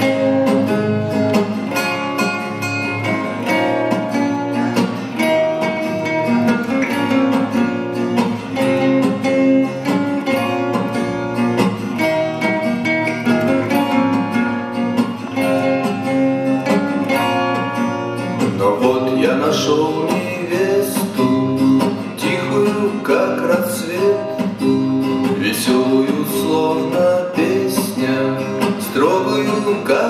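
Recorded song music playing loudly, without sung words, between the verses of a song about choosing a bride. It is a run of held, stacked notes, and about two-thirds of the way in a wavering, gliding melody line comes in over it.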